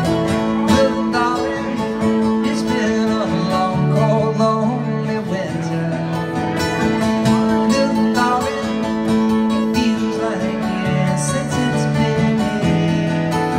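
Live amplified guitar music, the guitar played over long held bass notes that change every second or two.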